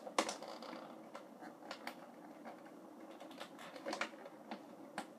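Cardboard-and-plastic toy packaging being handled and opened: faint rustling with scattered light clicks, a few of them sharper.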